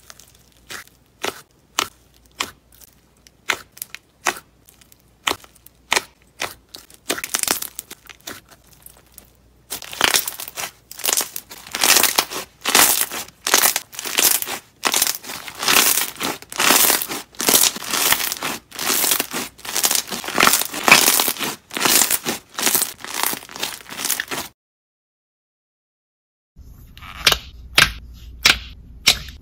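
Fingers poking, squeezing and pressing slime, making crisp clicks and pops. The clicks come sparsely for the first nine seconds or so, turn into dense crackling for about fifteen seconds, stop for about two seconds, then start again as a thick slime is pressed in its tub.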